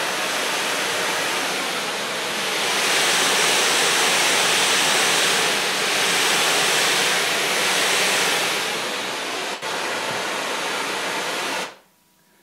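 Pink noise from two separate generators, one fed to each of two small battery-powered portable speakers with one speaker's polarity reversed. It plays as a steady, even hiss with no cancellation, because the two signals are independent and no longer interfere in or out of polarity. It swells somewhat in the middle, dips briefly near the end and then cuts off suddenly.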